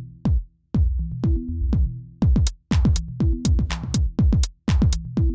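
Electronic background music with a steady drum-machine beat: punchy kicks that drop in pitch over a bass line, with bright hi-hats coming in about two seconds in.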